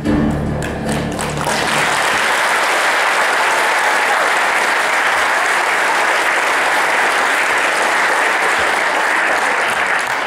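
An audience applauding steadily after a stage performance. The backing music ends in the first second and a half, as the clapping takes over.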